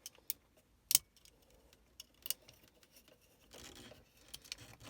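Sharp plastic clicks and a short scrape as a Mercedes W163 low range/fog light switch is worked out of its dash panel by hand. The loudest click comes about a second in, another follows a little after two seconds, and a brief rubbing comes near the end.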